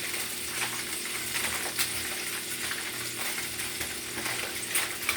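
Franks frying in hot grease on medium-high heat: a steady sizzle with many small crackles. Aluminum foil crinkles now and then as it is pressed into a basket.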